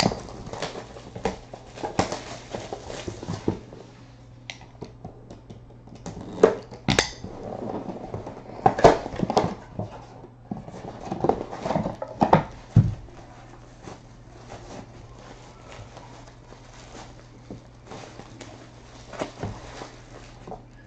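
Hands opening a cardboard box of autographed baseballs and pulling the ball out of its foil-lined plastic pouch: irregular crinkling, rustling and tapping, busiest in the middle, over a steady low hum.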